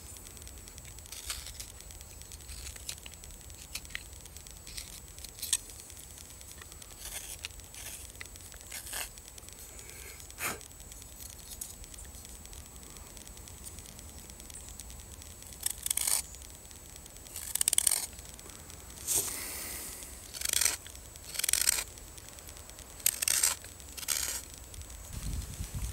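Carving knife slicing shavings off a wooden fox figure being whittled by hand. The first half has faint short cuts; from about halfway through come louder, longer scraping strokes, roughly one a second.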